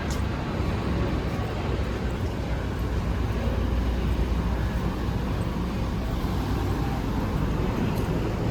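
Steady street traffic noise: a low rumble of road vehicles with no single event standing out, swelling slightly about halfway through.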